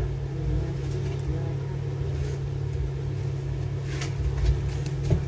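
Steady low background hum or rumble, with a couple of faint clicks near the end from hands handling the phone and its SIM tray.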